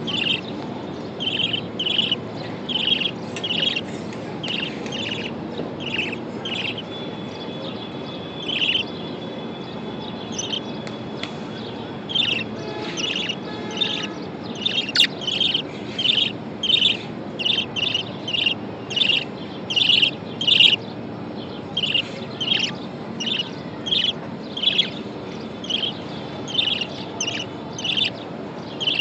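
Budgerigar chirping, short high chirps repeated over and over at about one to two a second, over a steady low background hum.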